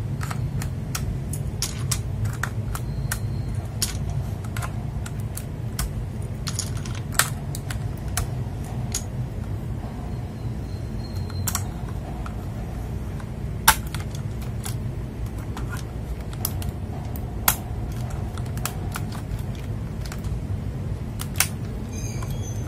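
Irregular plastic clicks and clacks of keys and keycaps being worked on a mechanical keyboard, an FL Esports MK870, with a few clearly louder clicks among them, over a steady low hum.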